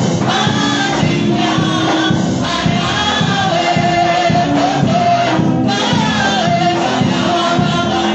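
Women's choir singing a gospel song, with held notes over a steady beat.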